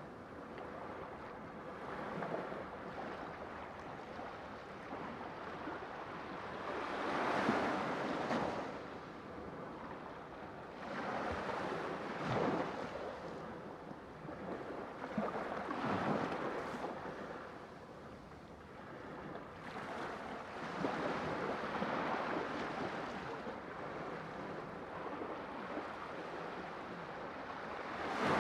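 Sea waves washing in on the shore, a steady rush that swells and falls back in surges every four to five seconds.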